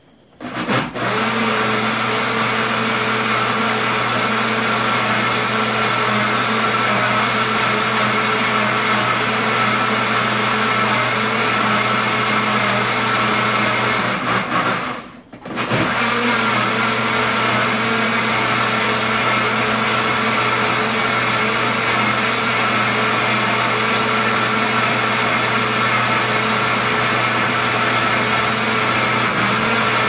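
Countertop blender motor running steadily, blending a creamy mix of used cooking oil and caustic soda solution for homemade soap. It starts about a second in, cuts out for under a second about halfway, then runs again.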